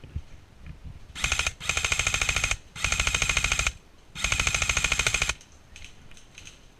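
Airsoft electric rifle firing on full auto: four bursts of rapid, evenly spaced shots. The first burst is short; the other three last about a second each, with brief pauses between them.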